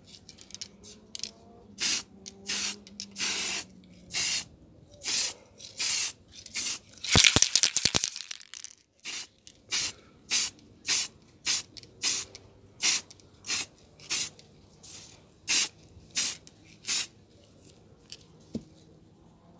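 Aerosol can of Motip wheel spray paint hissing in a rapid series of short bursts as paint is dusted onto an alloy wheel, with one longer, louder burst about seven seconds in.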